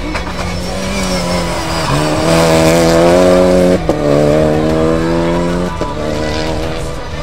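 Renault Clio Rally5 rally car's engine run hard. The revs climb to their loudest, cut briefly about four seconds in as it changes gear, then fall away and cut again near the end.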